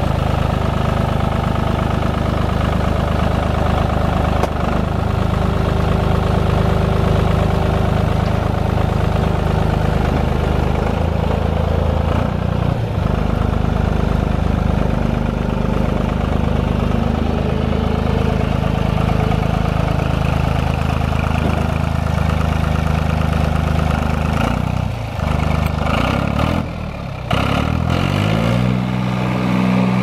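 Goldoni Maxter 60SN tractor's 2.1-litre VM Motori three-cylinder diesel running steadily while the tractor is driven, with the engine uncovered because its hood is missing. Near the end the engine note falters briefly a few times, then climbs to a higher steady speed.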